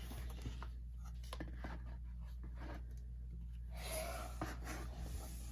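Faint rustling and light taps of paper and cardboard album packaging being handled, a little louder about four seconds in, over a steady low hum.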